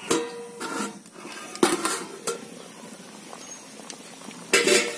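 Metal cookware clinking: an aluminium plate lid on a metal kadai gives a ringing clank at the start, then a few sharper knocks, and a louder clatter near the end.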